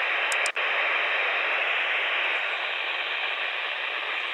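Steady static hiss from a NOAA weather radio receiver on dead air between broadcast messages, cutting out for an instant about half a second in.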